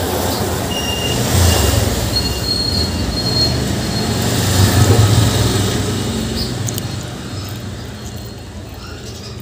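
Loud rumble of a passing heavy vehicle, with a few faint high squeals in the first few seconds, swelling to a peak about five seconds in and then fading.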